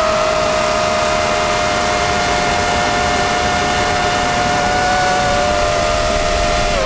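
FPV drone's electric motors and propellers whining steadily, heard from the onboard camera, over a steady rush of air. The pitch creeps slowly upward and dips at the very end as the throttle eases.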